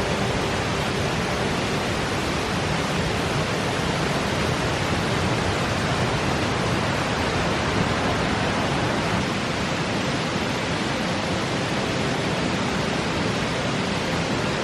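Mountain stream rushing steadily over rocks in the Cheondong Valley, a continuous even rush of water.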